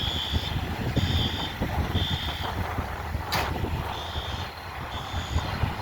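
Fire truck's backup alarm beeping about once a second over the diesel engine's rumble, as the apparatus reverses. The beeps skip once near the middle, where a short sharp hiss cuts in.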